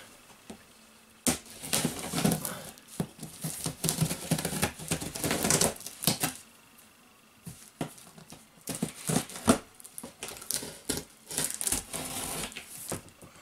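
Scissors slitting the packing tape on the top of a cardboard box: irregular runs of sharp clicks and short scraping strokes, with a brief pause about halfway through.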